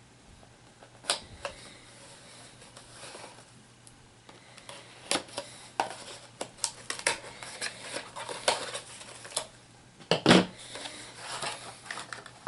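A HeroClix booster pack being opened and its contents handled: crinkling plastic and a run of small clicks and knocks, busier in the second half, with one sharper knock near the end.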